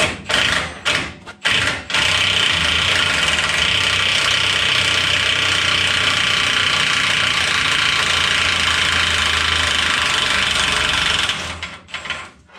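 Cordless impact wrench set to reverse, loosening a fastener on a truck's front suspension. It gives a few short bursts, then hammers steadily for about nine seconds before easing off in short pulses near the end.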